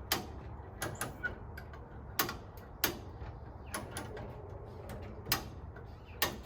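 Sharp metallic clicks and clanks from the lifting gear holding a car body up off its frame, about ten of them at uneven intervals, over a low steady hum.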